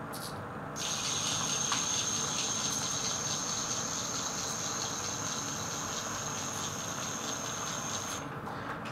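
Brushless motor of an Axial SCX24 micro RC crawler (Injora Fat Viper outrunner) driving the truck up a steep ramp under load, with a steady high-pitched whine. A brief burst comes first, then the whine holds for about seven seconds and stops shortly before the end.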